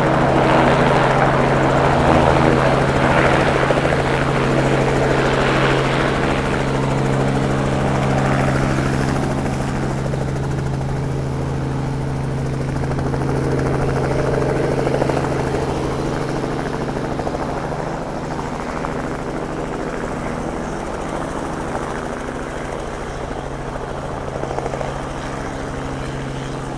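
Robinson R44 helicopter lifting off: its piston engine and two-bladed main rotor make a steady low drone. The rotor noise is loudest in the first several seconds and slowly eases off through the rest.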